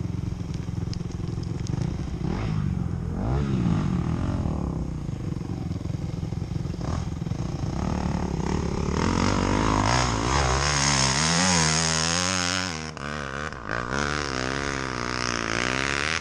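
Enduro motorcycle engine revving under load, its pitch rising and falling over and over as the throttle is worked, louder and with quicker swings in the second half.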